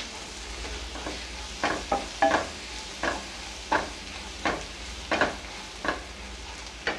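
A spatula stirring and scraping sautéing onions and spices in a nonstick frying pan, about one stroke every two-thirds of a second over a steady soft sizzle.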